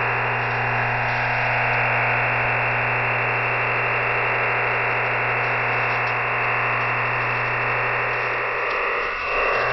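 EasyDRF OFDM digital data transmission received over shortwave: a steady, dense hiss-like band of many closely packed carriers with a steady low hum beneath. It dips briefly near the end with a falling sweep.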